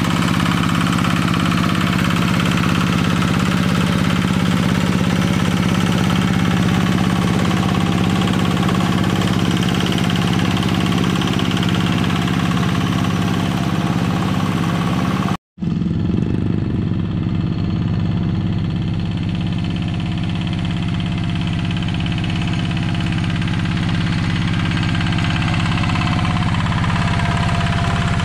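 Yanmar single-cylinder diesel engine of a two-wheel hand tractor running steadily under load while plowing a flooded rice paddy, with a brief break about halfway through.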